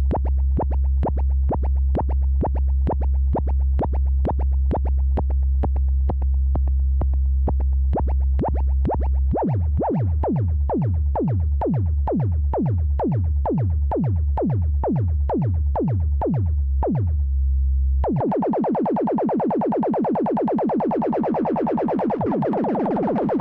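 Eurorack modular synthesizer notes shaped by a CEMvelope ADSR envelope generator: a fast run of short plucked notes, about three a second, over a steady low bass drone. About halfway through, each note starts with a quick falling sweep, and about three quarters of the way in the drone drops out and a dense, buzzy sustained tone takes over.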